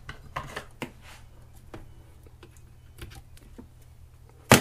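Scattered light clicks and taps of hands and a small cutting tool on a fishing rod as the tag end of the guide-wrapping thread is trimmed, with one sharp, loud click near the end.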